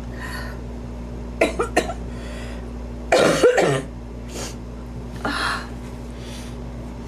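A woman coughing in fits: a quick run of three short coughs about a second and a half in, then a longer, louder, harsher cough about three seconds in, with breaths in between. She puts the coughing down to an allergy.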